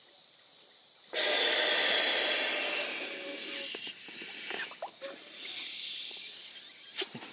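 Inflatable camping pillow being blown up by mouth through its valve: one long rush of air starting about a second in, then shorter puffs with nylon fabric rustling. A sharp click comes near the end. Crickets chirp faintly before the rush of air.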